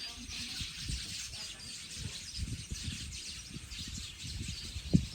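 Outdoor ambience with faint bird chirping, under irregular low rumbling and handling knocks, with one sharp knock near the end.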